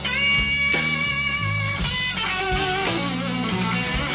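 Live blues band with electric guitar, bass and drums: the electric guitar plays a fill between sung lines, opening on a long held note and then running through shorter, bent notes.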